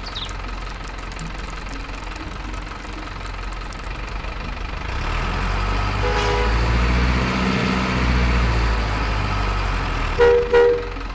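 Remote-control cement mixer truck's simulated diesel engine running, growing louder and rising and falling in pitch from about halfway as the truck drives off. A short horn toot about six seconds in, and two loud horn toots near the end.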